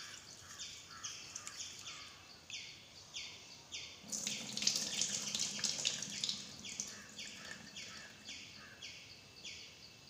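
Water from a kitchen tap splashing and trickling into a bowl of green grams (mung beans) as they are rinsed and rubbed by hand, loudest about four seconds in. A bird calls throughout with short, high chirps repeated steadily about one and a half times a second.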